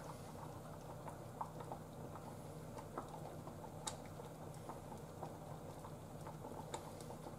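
Beef cream stew simmering in a pot, a faint steady patter of small bubbles popping, at the stage where it simmers before the milk goes in. A few sharper clicks stand out about four seconds in and near the end.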